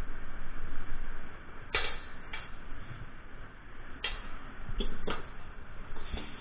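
Kitchenware clinking, about six short, sharp knocks spaced irregularly over a steady hiss.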